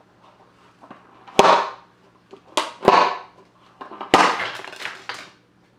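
Balloon-membrane vortex air cannon fired three times, about a second and a half apart: each shot is a sharp snap of the released balloon followed by a brief rush of air, the last rush a little longer.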